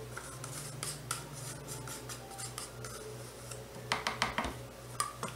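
Thin wooden stick scraping and tapping against a plastic measuring cup as a little more green colourant is worked into soap oils: light scratchy ticks, then a quick cluster of sharper taps about four seconds in and two more near the end.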